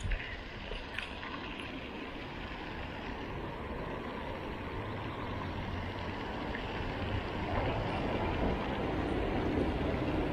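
Steady low outdoor rumble with no clear rhythm or tone, growing louder about seven and a half seconds in.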